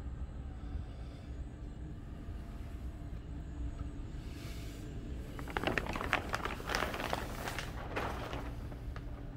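Plastic containment sheeting crinkling and rustling for about three seconds, starting about five and a half seconds in, over a steady low hum.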